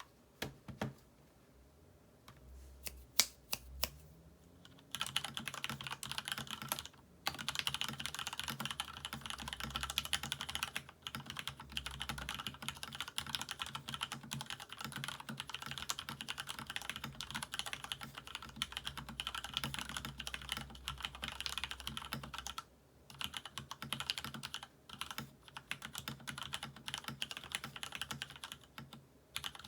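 Typing on a Monstargear Ninja87BT mechanical keyboard with lubed, retooled Cherry MX Black linear switches in an aluminium plate and plastic case, and PBT Cherry-profile keycaps. It starts with a few single keystrokes, then turns into a fast, continuous run of key clacks with a few short pauses.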